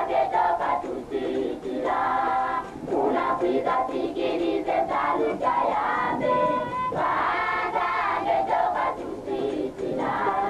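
A choir of high voices sings a church hymn in phrases, with short breaks between them.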